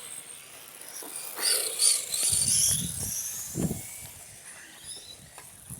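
Radio-controlled cars on the track, their motors giving high-pitched whines that glide up and down as they speed up, brake and pass. A few low thumps on the microphone.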